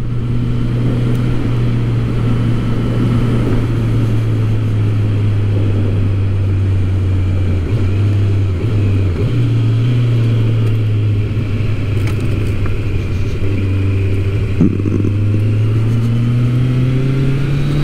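Motorcycle engine running at cruising speed, its note dipping slightly about halfway through and climbing again near the end.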